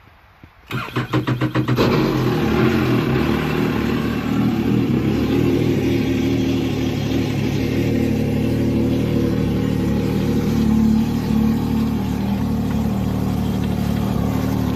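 2017 Yamaha VX WaveRunner engine cranked by its electric starter for about a second, then catching and idling steadily while run out of the water on a garden hose. It shows the previously seized jet pump, freed by grinding down its swollen wear ring, now turning freely.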